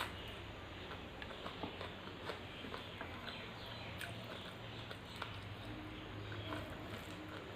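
Close-miked eating sounds: chewing and small wet mouth clicks and smacks at an irregular pace over a low steady hum.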